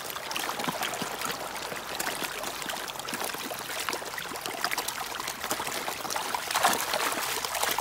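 A crowd of fish thrashing and splashing at a pond's surface as they are fed: a busy, continuous crackle of many small splashes, swelling briefly about seven seconds in.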